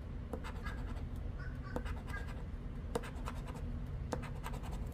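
The edge of a casino-style chip scraping the latex coating off a scratch-off lottery ticket in short, irregular strokes that come in a quick run near the end.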